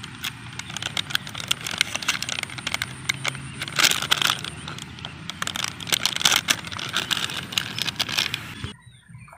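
Plastic sachet of rat-bait blocks crinkling and crackling as it is handled and turned over in the hand, then pressed down on grass. The crackles are loudest about four and six seconds in, and the sound drops away sharply near the end.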